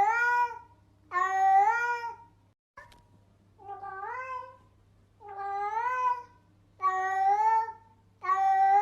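Cat-meow sound effect played back over and over: about six near-identical meows, one roughly every second and a half, each rising in pitch at its end, over a steady low hum. About three seconds in the sound drops out briefly with a click.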